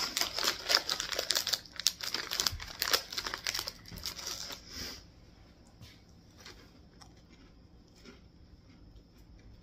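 Snack packaging crinkling and tearing as it is wrestled open, a dense crackling for about five seconds, then only a few faint scattered clicks.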